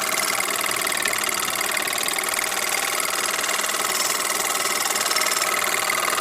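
Bowman PW201 model steam engine running smoothly on compressed air, a fast, even mechanical beat. It carries a light metallic chink, which the owner puts down to the loose chimney.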